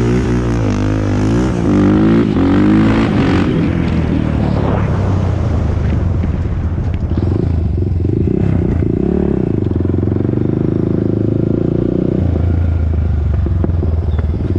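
A Honda TRX400EX ATV's single-cylinder four-stroke engine running under way. Its revs rise and fall over the first few seconds, then it settles to a steadier, lower speed.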